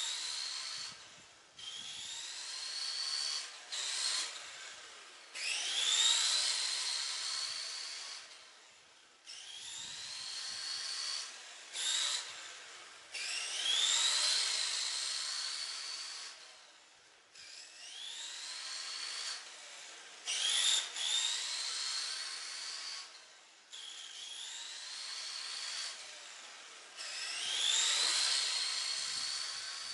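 Tamiya TT-01 R35 GT-R radio-controlled car running on pavement: its Tamiya Light-Tuned brushed electric motor and drivetrain whine, rising in pitch as it accelerates and cutting off sharply when the throttle is released. The pattern repeats every few seconds as the car speeds up and slows down around the yard.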